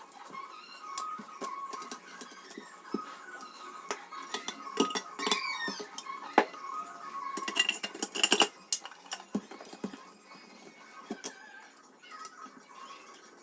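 Background music with scattered small metallic clicks and clinks, busiest in a cluster of sharp clinks about eight seconds in.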